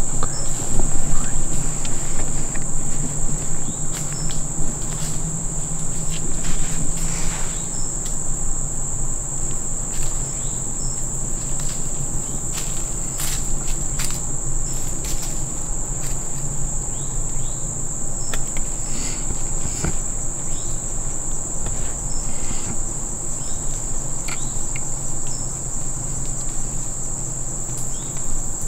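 Steady, high-pitched chorus of insects trilling without a break, over a low steady hum, with scattered short rustles and clicks.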